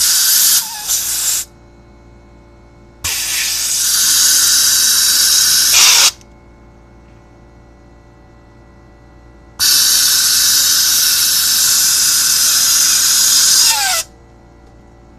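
Compressed air hissing from an air blow gun in three bursts, a short one, then one about three seconds long and one about four seconds long, blown through the ice maker's water fill line to clear ice or debris. Under it, starting about a second in, a steady low hum: the air compressor running.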